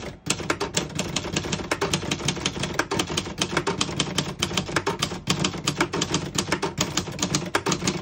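Royal Arrow manual portable typewriter being typed on, a steady run of rapid key strikes, several a second, as a sentence is typed out.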